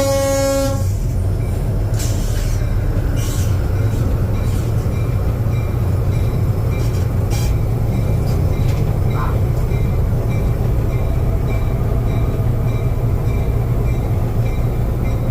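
A diesel switcher locomotive's horn blast cuts off within the first second. The Fairbanks-Morse opposed-piston diesel engine then runs with a steady, loud low rumble, with a few light clanks.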